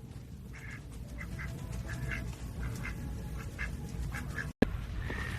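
Ducks quacking in short, soft calls, about a dozen scattered through, over a low steady background hum. The sound drops out for a moment with a click a little over four and a half seconds in.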